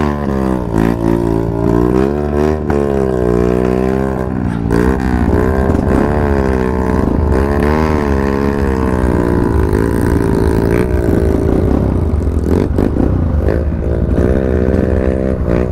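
Trail motorcycle engine revving hard in repeated surges, its pitch rising and falling every second or two, as it struggles for grip on a muddy slope after rain.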